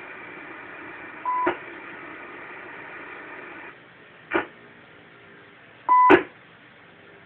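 Icom IC-9100 amateur transceiver's speaker on an open 2 m channel: steady radio hiss with two short beeps, about a second in and near the end, each cut off by a sharp click, and a lone click in between. The hiss drops quieter about halfway through.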